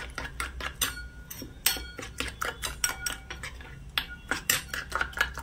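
Metal spoon clinking and scraping against a small steel bowl in rapid, irregular strokes, stirring ground spices into water to mix a masala paste.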